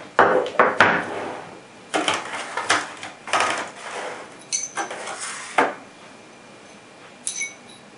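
Knife-sharpening rods and their turnbox knocking and clattering as they are handled and unpacked: a run of sharp knocks over the first six seconds, then a lull and a clear, ringing clink near the end.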